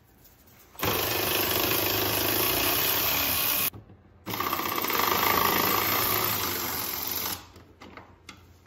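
Cordless electric ratchet running under load as it drives a bolt: two runs of about three seconds each, with a short pause between.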